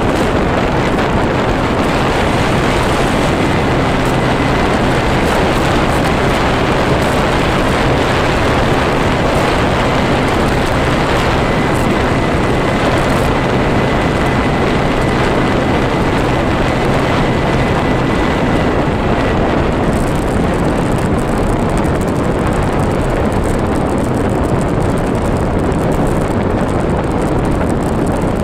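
Wind rush on the microphone and road noise from riding along an asphalt road, loud and steady, over a steady low engine hum that stops about two-thirds of the way through.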